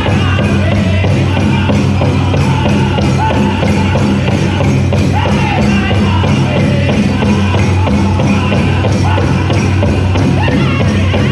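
Powwow drum group singing a men's chicken dance song in high-pitched voices over a steady, evenly struck big drum, with the jingling of the dancers' bells.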